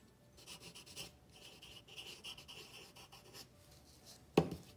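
Pencil lead scratching on paper while a word is written out in a few quick strokes, followed by a single sharp tap near the end.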